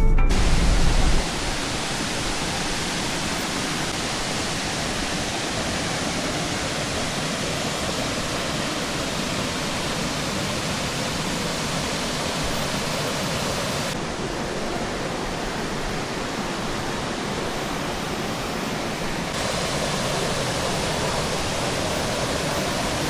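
Waterfall pouring onto rock: a steady, even rush of falling water, changing slightly in tone twice as the shot changes.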